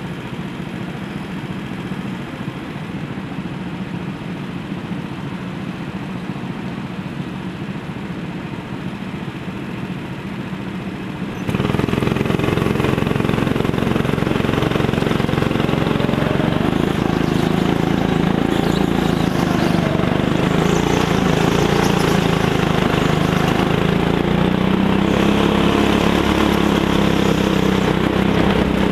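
Go-kart engine running continuously, heard from on board the kart as it laps. About a third of the way through, the sound turns abruptly louder and fuller and stays that way.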